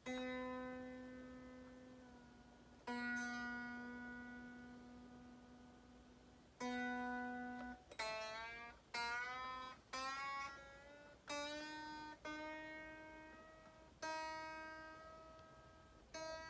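Squier Affinity Stratocaster string plucked one note at a time during tuning: each note rings and fades. Partway through, the pitch wavers and climbs as the tuning key is turned, then settles on a higher note. The string would not hold pitch because it was slipping through the tuner.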